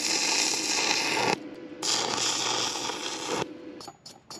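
Stick welder arc crackling and sizzling as the rod burns, making a spot weld. It breaks off sharply about a second and a half in, strikes again half a second later and runs for well over a second more, then a few light clicks follow near the end.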